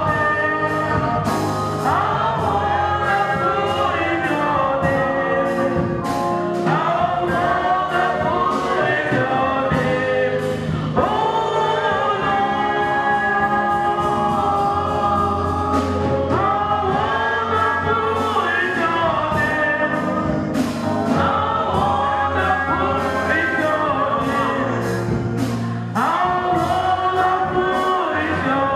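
Gospel choir singing over a band with a steady beat.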